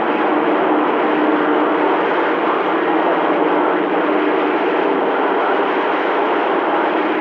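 Steady rumbling noise of a train running, heard over a CB radio receiver, with faint steady tones under the noise.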